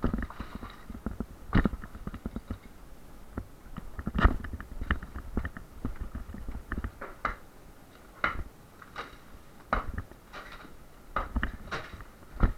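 Irregular knocks and clattering from partition walls being broken up by hand, with some heavier blows among lighter rattles of debris.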